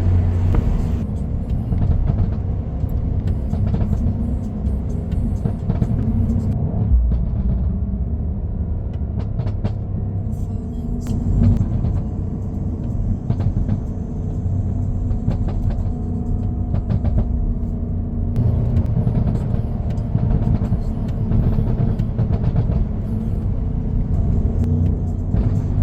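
Exhaust of a 2017 BMW M550i's twin-turbo V8 running with a steady deep drone, broken by scattered short pops.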